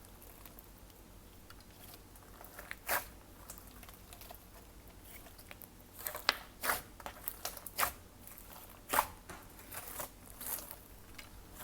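Glossy slime being squished and stretched by hand, giving irregular sharp clicking and popping sounds, one about three seconds in and then a quick run of them in the second half.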